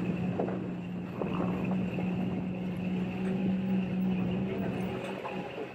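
A Toyota 4x4's engine running steadily as it drives over a rough dirt road, with scattered knocks and rattles from the bumps. The steady hum breaks off briefly near the end and then resumes.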